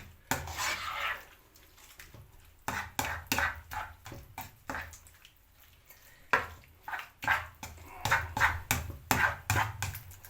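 Spoon stirring chicken in sauce around a pan on the hob, in clusters of quick scrapes and taps with short pauses between. A low steady hum runs underneath.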